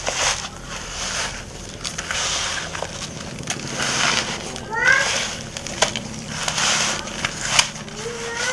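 Hands rubbing salted catfish in a plastic bowl of roasted rice and roasted rice bran: the dry, gritty grains rustle and crunch in repeated strokes, about one a second, as the fish is coated for fermenting into pla ra. A short rising chirp is heard about five seconds in.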